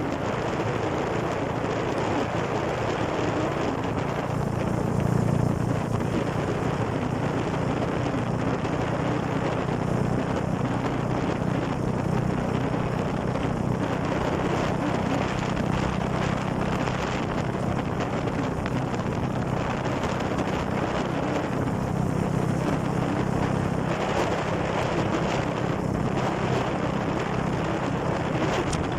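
Steady running noise of a moving vehicle on the road: a low engine hum under a continuous even hiss.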